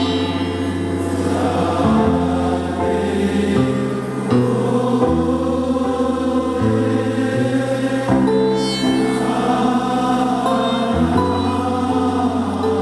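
Devotional music: voices chanting in long held notes over a sustained low note, the pitch changing every second or two.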